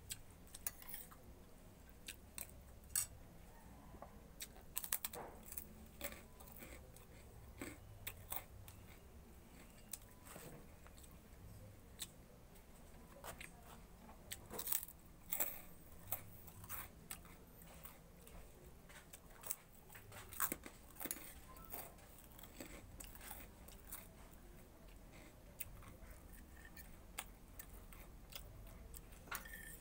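A person eating with a metal spoon from a plate: chewing, with irregular sharp clicks and scrapes of the spoon against the plate.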